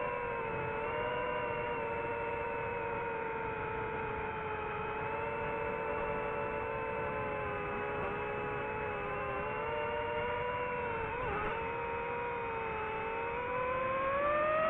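FPV quadcopter's electric motors and propellers whining at a fairly steady pitch, with a brief wobble about eleven seconds in. Near the end the whine rises in pitch and gets louder as the throttle is pushed up.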